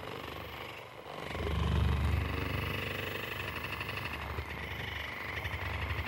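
Percussive massage gun running with a steady, rapid buzz, starting about a second in.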